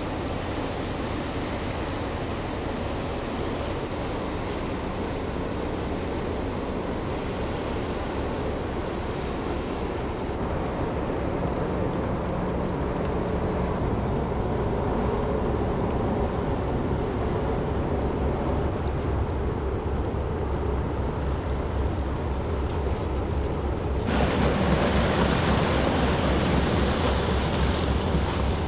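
Container ship passing close: a steady low engine drone under the rush of its bow wave through the water, growing gradually louder as the ship comes level. Near the end the rushing noise jumps sharply louder.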